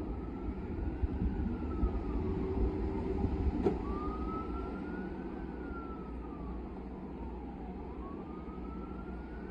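Emergency vehicle siren wailing, one slow rise and fall of pitch about every four seconds, over a steady low rumble. A single sharp click just under four seconds in.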